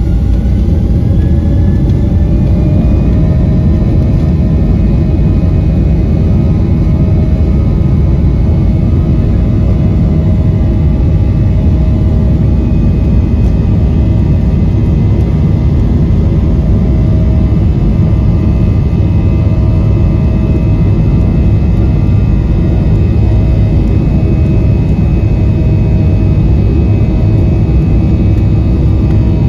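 Jet airliner engines heard from inside the passenger cabin while the plane taxis: a loud, steady rumble with a thin engine whine that rises a little about two seconds in.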